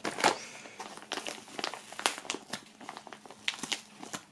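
Brown kraft-paper padded envelope crinkling and crackling in irregular small rustles as hands pull at its strongly glued flap to tear it open.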